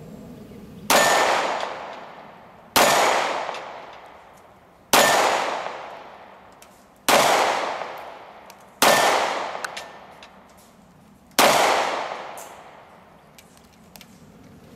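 Six shots from a Glock 43 9mm pistol, fired slowly about two seconds apart, each a sharp crack with a long fading echo. The hits ring on steel targets.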